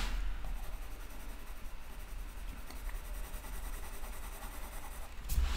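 Colored pencil scratching faintly and steadily on sketchbook paper while coloring in a small circle, pressed a little harder to darken one side.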